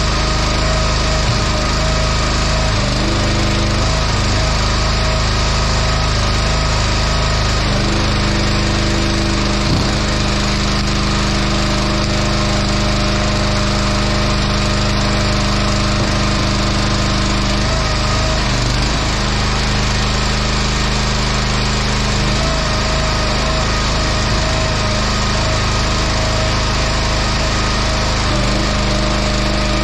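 Small gas engine of a log splitter running steadily. Its note shifts several times as the hydraulic splitter is worked under load on white oak rounds.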